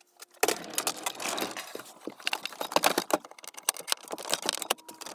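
OSB cabinet on casters rolled across a plywood floor, rattling and knocking in a rapid, irregular run of clicks that starts about half a second in.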